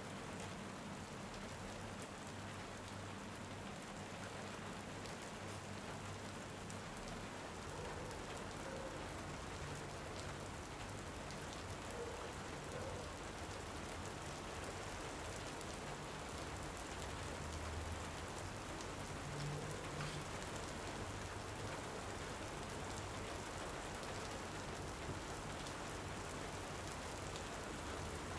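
Steady rain falling, an even hiss of drops on surfaces.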